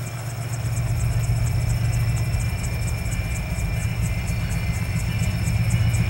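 Diesel locomotive engine of an approaching, still unseen train: a low, steady hum that grows gradually louder.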